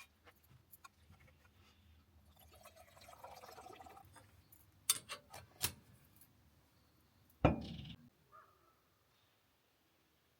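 Tea being poured into a cup, followed halfway through by a few sharp clicks and then one brief, loud knock.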